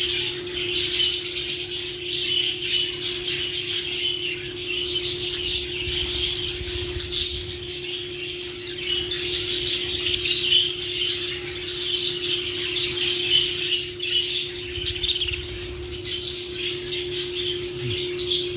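Lovebirds chattering in a dense, continuous run of short high chirps and squawks, over a steady low hum.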